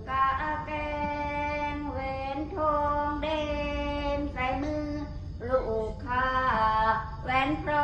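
A woman's voice singing a slow, unaccompanied melody in long held notes, sliding between them.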